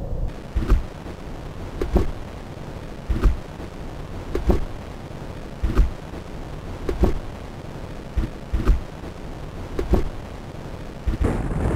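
Dull low thumps repeating evenly, about one every 1.3 seconds, over a steady low rumble; near the end a louder rumbling noise sets in.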